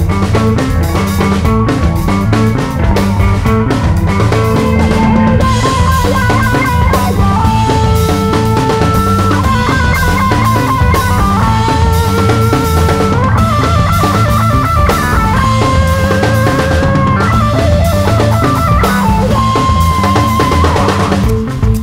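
Background music with a steady drum beat and a melody line.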